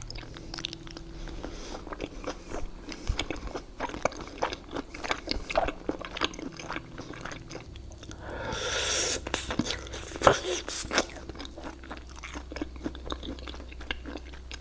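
Close-miked chewing and biting of food, with many quick wet clicks and crunches. About eight seconds in, an airy rush lasts over a second, followed by one sharp louder click.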